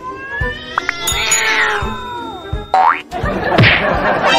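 A cat yowling with high, wavering cries, followed by cartoon sound effects: a quick rising whistle just before three seconds in and a steep falling whistle about a second later, over background music.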